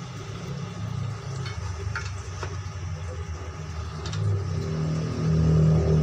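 An engine running with a low hum that grows louder from about four seconds in, with a few light clicks of a hand tool against wood held in a vise.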